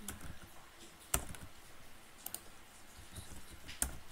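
Scattered clicks of typing on a computer keyboard, with two sharper, louder clicks about a second in and near the end.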